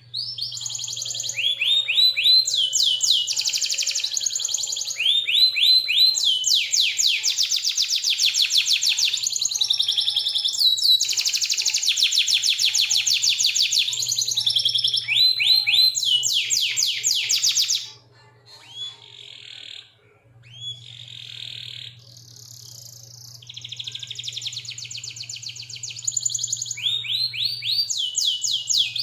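A domestic canary singing a long song of fast trills and rolls: rapid runs of repeated rising notes, with a short softer, broken passage about two-thirds of the way through before the trills resume.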